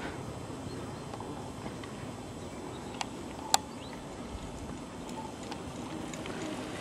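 A group of mountain bikes riding on a dirt track: low tyre rumble and rattling, with two sharp clicks about three seconds in.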